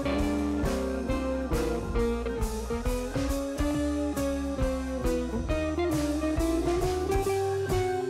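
Background music: a blues-style guitar tune with drums keeping a steady beat.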